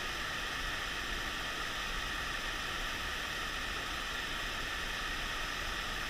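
Mountain stream's rushing water: a steady, even hiss that holds level throughout.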